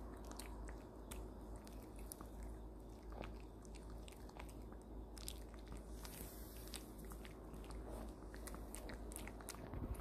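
A Maltese dog chewing a hard treat: faint, irregular crunches and clicks of its teeth on the treat.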